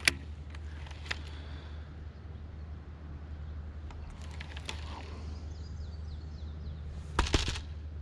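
Scattered clicks and knocks from handling a baitcasting rod and reel, over a steady low hum. There is a sharp click at the start and a louder clatter about seven seconds in.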